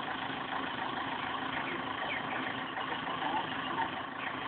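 A steady mechanical drone, with a few short bird chirps over it.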